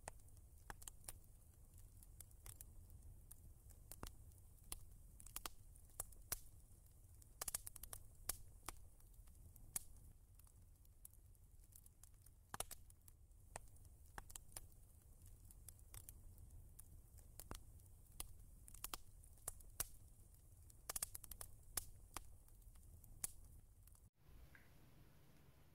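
Near silence: a faint low hum from the running oven, with scattered faint clicks and crackles coming in uneven clusters.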